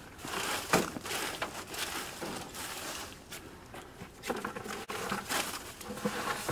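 Vegetable scraps, mostly lettuce and cabbage leaves, being tipped and spread onto a compost pile: irregular rustling and crinkling with soft scattered pats as the leaves land.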